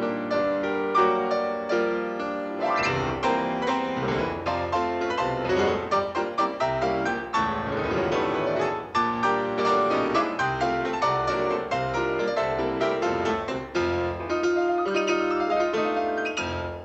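Piano playing a fast, busy piece, thick with quick runs of notes.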